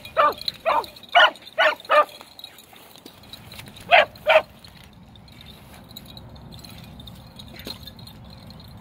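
Hunting beagles giving short, sharp chop barks on a trail: five quick barks in the first two seconds and two more about four seconds in, then the barking stops and only a faint low steady background noise remains.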